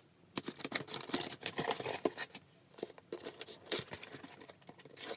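Cardboard parcel being cut open: a small tool scraping and slitting along the packing tape, with the box crinkling and knocking in the hands in a run of irregular scratches and taps.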